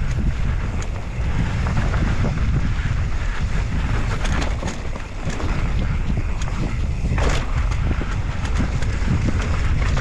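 Wind buffeting the microphone over the rumble of knobby mountain-bike tyres on a dirt downhill trail, with scattered clicks and rattles and a sharper knock about seven seconds in.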